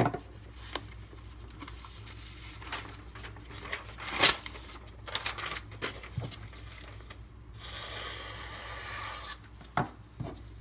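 Knife edges being tested by slicing through paper: papery tearing and rasping strokes with scattered clicks from handling, and a longer hissing cut near the end.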